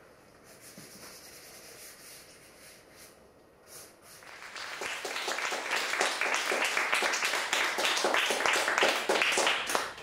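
An audience applauding, starting about four seconds in and quickly building to steady clapping.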